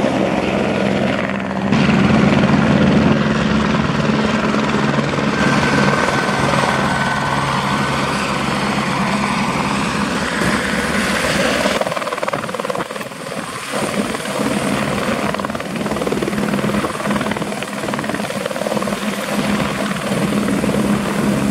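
Airbus AS350B3 AStar helicopter running: turbine whine and rotor noise over a steady low hum. The sound jumps abruptly at edits, and from about twelve seconds in it is quieter and thinner, with the helicopter on the ground and its rotors turning.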